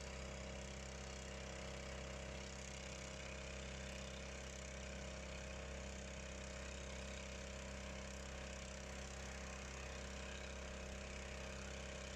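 Engine-driven motor pump on a fire-tanker trailer, running steadily as it drives the water monitor's jet, with an even hiss over the engine note.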